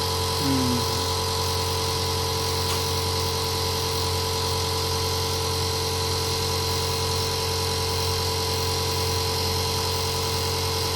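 A small motor-driven machine running with a steady, even hum. A brief faint voice sounds about half a second in.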